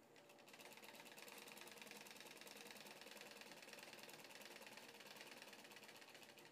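Sewing machine running a seam at a fast, even stitching rhythm. It starts about half a second in and stops just before the end.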